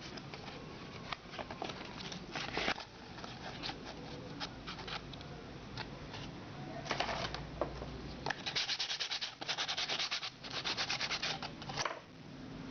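Hand sanding with sandpaper clamped on a home-made wooden sanding block: rasping back-and-forth strokes, a few slow ones at first, then a fast, even run of strokes over the last few seconds.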